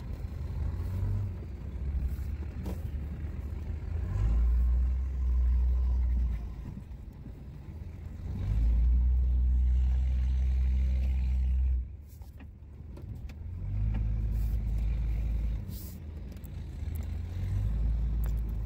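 A 2003 Dodge Ram 2500 pickup's engine and drivetrain heard from inside the cab while plowing snow. A low rumble swells and eases in about four surges of a few seconds each as the truck pushes and backs.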